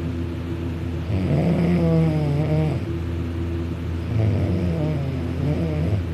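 Young man snoring loudly in his sleep, lying on his back with his mouth open: two long snores with a wavering pitched tone, the first about a second in and the second about four seconds in, over a steady low hum.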